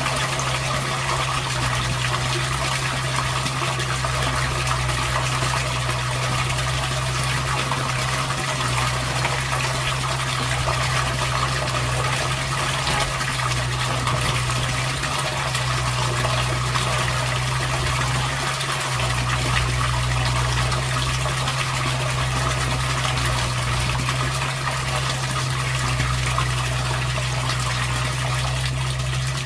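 Water gushing steadily over a constant low hum, typical of a sump pump running and moving water through the outdoor sump system.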